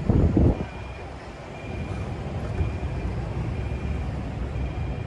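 Steady low rumble of city road traffic, with a brief loud low rush in the first half second. A short high beep repeats about once a second.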